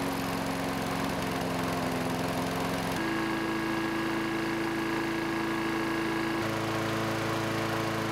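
Toro Recycler push mower's small single-cylinder engine running steadily at a fixed throttle, at about 3,300 RPM, with diesel instead of oil in its crankcase.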